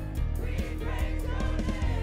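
Live church worship band playing a praise song: electric guitars, bass and drums with voices singing over them and a steady drum beat.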